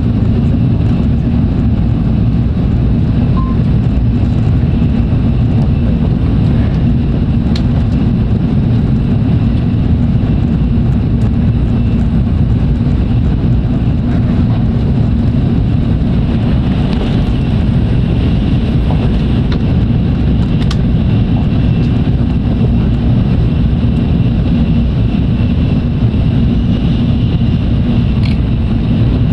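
Steady low rumble of a Tokaido Shinkansen bullet train at speed, heard from inside a passenger car: wheels running on the rails and air rushing past the body. A faint high whine joins about halfway through.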